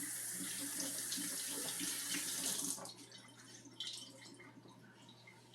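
Water running from a faucet into a sink as a cleaning rag is wetted under it, shut off just under three seconds in; a few faint short handling sounds follow.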